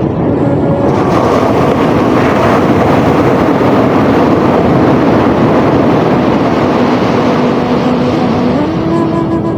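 Sea surf rushing in a loud, steady wash that swells about a second in and eases near the end, over soft sustained music notes.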